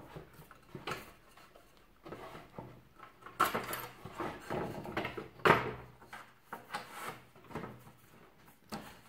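A clamp guide rail being handled against a wooden board: irregular scrapes, slides and clunks as the released clamp is moved into position, with the loudest knocks about three and a half and five and a half seconds in.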